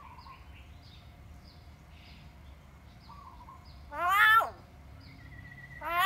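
Common hill myna giving one loud call about half a second long, roughly four seconds in, its pitch rising then falling, after a few faint short chirps.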